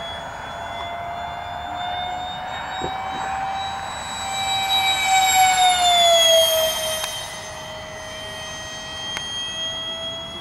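Whine of the Wings Maker J-10B RC jet's 70 mm five-blade electric ducted fan, driven by an outrunner motor, as the model flies past. The steady high whine grows louder, peaks about five to six seconds in, then drops in pitch as it passes.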